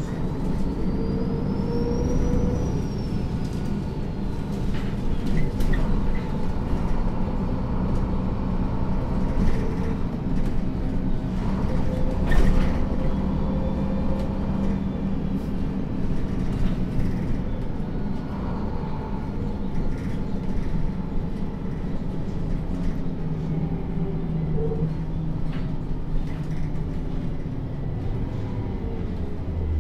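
Onboard sound of a 2008 MAN NG 323 (Lion's City G) articulated city bus under way, its diesel engine and ZF automatic gearbox running steadily with road noise. A faint whine rises and falls in the first few seconds, and a single sharp knock comes about twelve seconds in.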